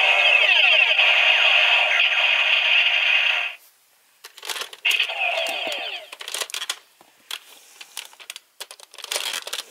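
Battery-powered pirate-ship toy playing an electronic sound effect through its small speaker, a dense sweeping tone that cuts off suddenly about three and a half seconds in. Then sharp plastic clicks and rattles of the toy being handled, with a second short electronic sound about five seconds in.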